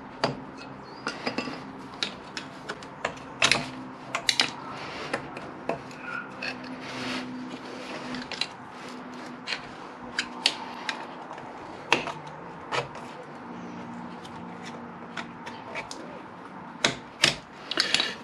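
Circlip pliers and a screwdriver clicking and scraping on the large steel snap ring of a Honda VFR800's rear hub as it is levered off. Irregular sharp metallic clicks and taps, thickest a few seconds in and again near the end.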